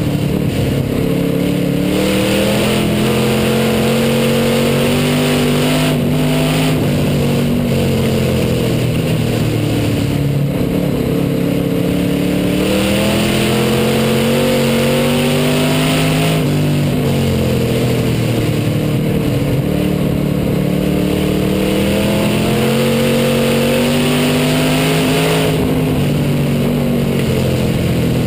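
Hobby stock race car engine heard from inside the car at racing speed, its pitch climbing for several seconds and then dropping back, about three times over.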